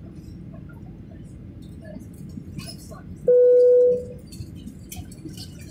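A single electronic chime tone about three seconds in, held steady for over half a second, then fading out, over a low steady cabin hum.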